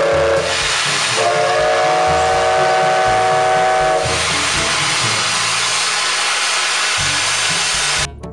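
Full-size Thomas the Tank Engine replica steam locomotive venting steam with a loud, steady hiss. Its steam whistle sounds twice: a chord that ends about half a second in, then a higher one lasting about three seconds. The hiss cuts off near the end.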